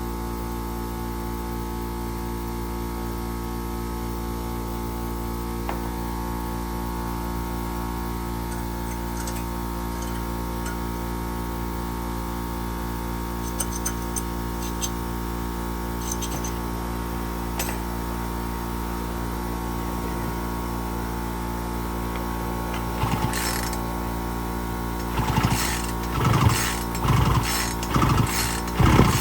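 A steady electrical hum with a few faint clicks. Near the end come several quick rhythmic pulls on a Poulan Pro 42 cc chainsaw's recoil starter, each a short whirring crank, with the engine failing to fire.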